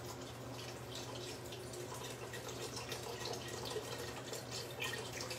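Stock being poured a little at a time into a pot of mushroom soup base, with irregular small splashes and drips over a steady low hum.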